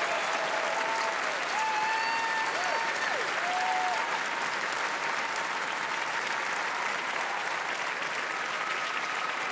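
A large theatre audience applauding, a steady dense clatter of many hands clapping, with a few voices cheering over it in the first few seconds.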